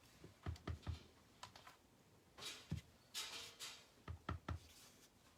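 Cardstock and crafting tools handled on a desk: scattered light knocks and taps in small clusters, with a brief scraping rustle of paper a little after three seconds in.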